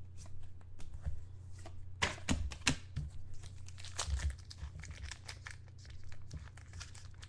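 Trading card pack wrappers crinkling and tearing as packs are opened and cards handled, a run of small crackles and clicks, over a steady low hum.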